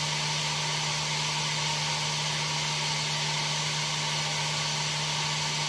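Heat gun running steadily on its high setting, a constant rushing blow with a low steady hum, powered from the boat's battery bank through an inverter.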